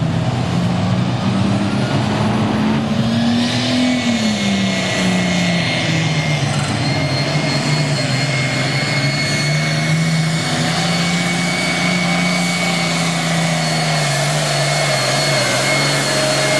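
International 1066 pulling tractor's turbocharged diesel engine running flat out under the load of the sled. Its pitch climbs over the first few seconds, dips, then holds steady, with a high, steady turbo whistle from about three seconds in.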